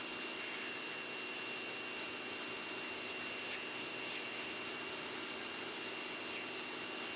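Portland electric pressure washer running steadily: an even hiss of spray with a constant high-pitched whine over it.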